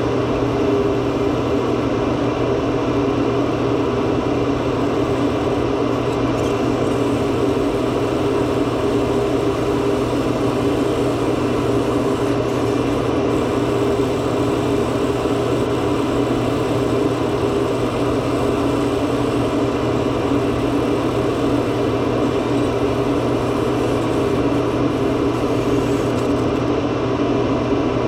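Steady machine hum, like a motor or fan running continuously at an even pitch.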